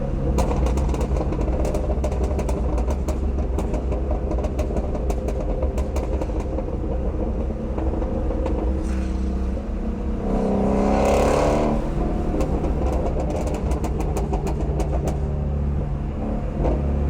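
Shelby GT350R's 5.2-litre flat-plane-crank V8 burbling through its stock exhaust, with rapid irregular pops and crackles over a steady engine drone; the engine note swells for a couple of seconds about two-thirds of the way through. The popping comes from lifting off and then holding the pedal slightly pressed at cruise.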